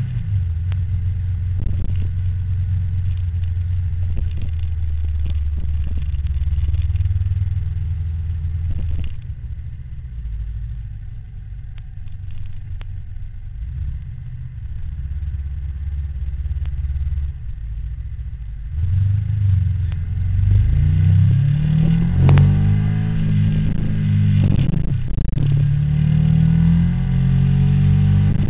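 Motor vehicle engines with a steady low rumble. About two-thirds of the way in, the sound grows louder and the engine pitch rises and falls several times, as when engines rev or pass by.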